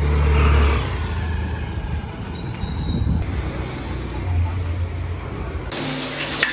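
Street traffic: the low rumble of motor vehicles on the road, swelling twice as vehicles pass. It cuts off suddenly near the end to quieter indoor sound with a sharp click.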